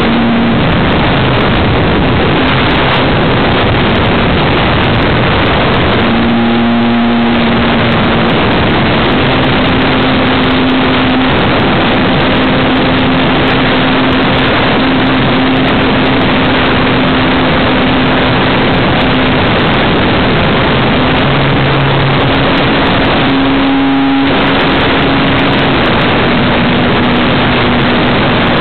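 RC airplane's motor and propeller running in flight, heard from a camera carried on the plane, with heavy wind rush over the microphone. The motor tone shifts in pitch several times, with two brief lulls in the noise as the throttle changes.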